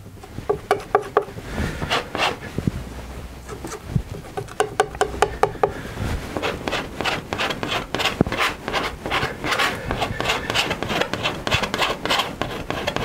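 Large palette knife scraping and smearing thick oil paint on a stretched canvas and the palette: scattered strokes at first, then a quicker run of short scrapes in the second half.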